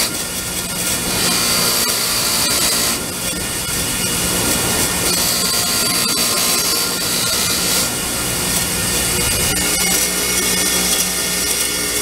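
Bench grinder's wire wheel running, brushing the threads of a small switch clean: a steady motor hum under a rasping hiss that swells and eases as the part is pressed to the wheel and eased off.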